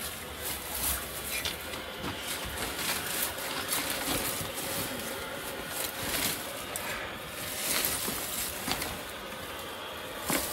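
Dry brushwood rustling and crackling as it is pulled by hand out of a woven basket, with scattered small snaps of twigs.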